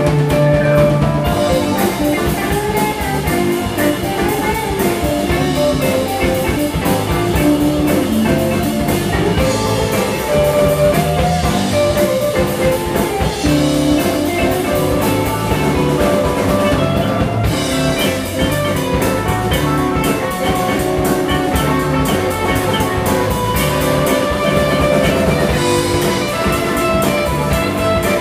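Live rock band playing: electric guitars, drum kit and keyboard.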